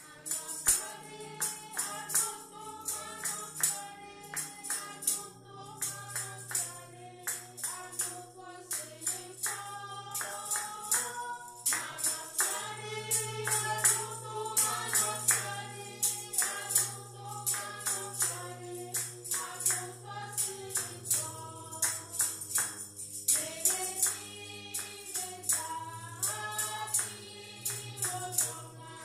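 A choir singing a hymn in Ewe over a steady beat of tambourine-like hand percussion and a bass line, starting just after a moment of silence.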